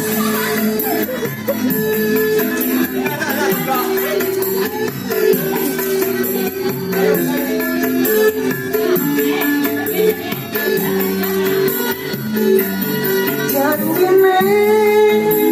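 Live Javanese campursari band playing an instrumental passage, with sustained melody notes over a shaken jingling percussion keeping a steady beat.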